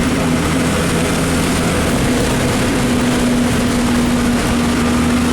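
Public bus engine running with a steady drone, under a dense hiss of heavy rain and wet road noise.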